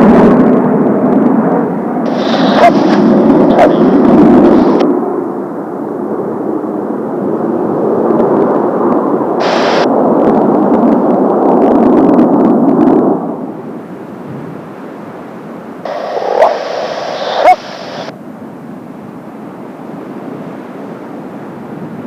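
Kawasaki T-4 jets of the Blue Impulse team flying past, their turbofan engines making a loud rushing jet noise that falls away about two-thirds of the way through to a fainter, distant rush.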